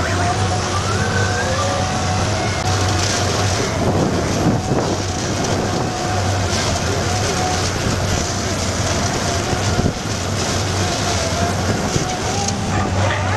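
Large tracked drilling rig running: a steady diesel engine hum with a wavering hydraulic whine as its rotary drive turns a steel casing into the ground.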